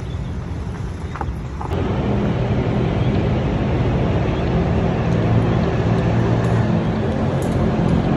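A motor vehicle's engine running with steady road noise, growing louder about two seconds in.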